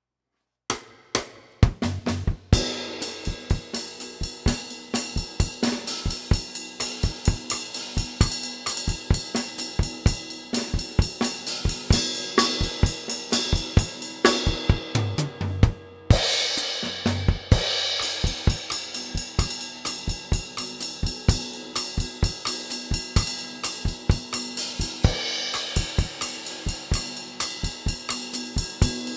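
Acoustic drum kit played on its own, starting about a second in: a steady groove of kick drum, snare and hi-hat, with a cymbal crash at about the middle and another near the end.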